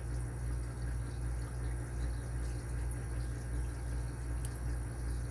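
Faint, sharp metallic ticks, two of them about three and four and a half seconds in, from a Lishi 2-in-1 pick working the pins inside an Abus 83AL50 aluminium padlock, over a steady low hum.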